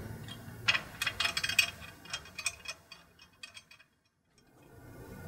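Light metallic ticks and clinks, several a second, as a bolt and spacer are worked by hand through a bracket plate into an engine block; the ticking dies away about three seconds in and it goes almost silent.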